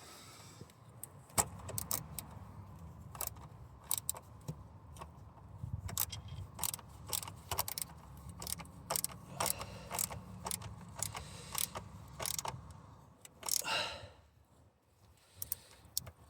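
Irregular metallic clicks and clinks of hand tools and a worm-drive hose clip being worked on an engine's coolant hose, over a low steady rumble.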